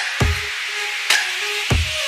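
Electronic background music with a steady beat of deep kick drums and sharp snare-like hits over a sustained synth line.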